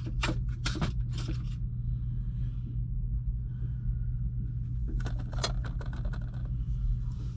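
A few sharp clicks and light taps of small items being handled at a fly-tying bench, over a steady low hum.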